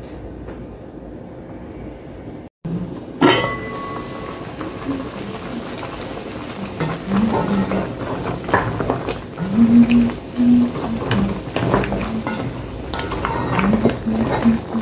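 A covered aluminium pot of curry cow foot simmering on the stove. About three seconds in, a metal clank with a short ring, then a wooden spoon stirring and scraping the pieces of cow foot in the pot, with irregular knocks and clatters against the aluminium.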